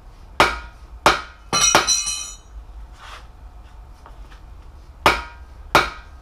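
Hammer blows on the end of a long bearing-driver bar, driving a balance shaft bearing into the bore of a 3.7L Jeep engine block. Six sharp metallic strikes come in pairs, with a pause of about three seconds before the last two. The middle pair leaves a short metallic ring.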